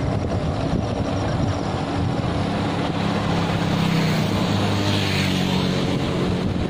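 Wind and road noise on the microphone of a moving bicycle, with a motor vehicle's engine passing, loudest about four to five seconds in.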